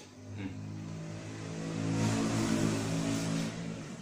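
A motor vehicle's engine passing by, growing louder to a peak about two seconds in and then fading away.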